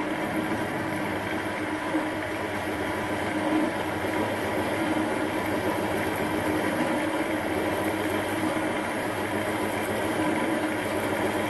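Well-used Chinese metal lathe running steadily while a half-inch twist drill is fed from the tailstock through spinning cast aluminium: an even motor and gear hum with a few held tones under the noise of the drill cutting.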